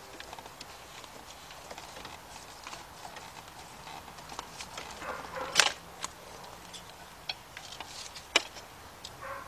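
Irregular light clicks and taps of hand tools against metal parts in a car's engine bay, with a louder knock about five and a half seconds in and a sharp click near the end.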